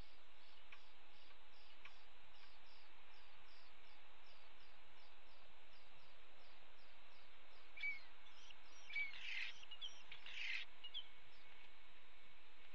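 European starlings calling: a short run of whistles and harsh chattering calls between about eight and eleven seconds in. Under it lies a steady outdoor hiss with a faint high pulsing about twice a second.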